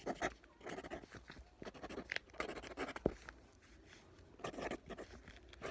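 Pen writing on paper: faint, irregular scratching strokes of handwriting.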